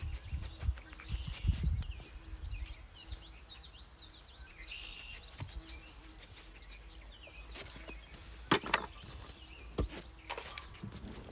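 Small birds chirping, a quick run of short high chirps for a few seconds, over low thumps near the start; two sharp knocks come near the end.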